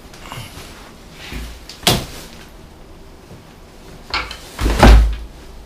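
Handling knocks and thumps from a loaded hiking backpack being moved and set down on a tiled floor. There is a sharp knock about two seconds in, and the heaviest, deepest thump comes near the end.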